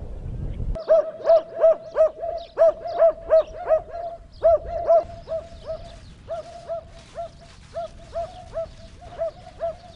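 A dog barking over and over in short, same-pitched barks: quick, about three a second, starting about a second in, then more spaced out and fainter after about five seconds.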